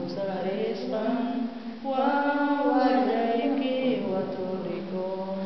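A woman singing a slow song in Quechua, holding long notes and gliding between pitches, loudest in the middle.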